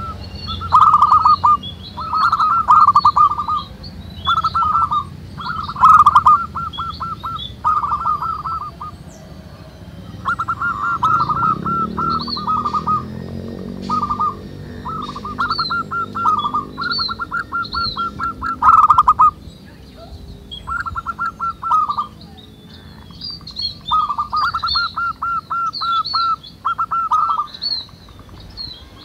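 Zebra doves cooing their territorial song: repeated phrases of quick stuttering coo notes, about a second each, following one another with short pauses. Fainter high chirps from small birds run underneath.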